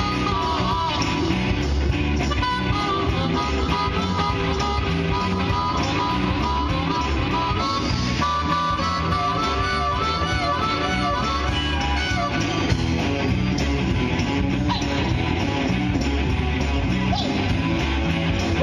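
Live blues-rock band playing, with electric guitar, bass and drums over a steady beat.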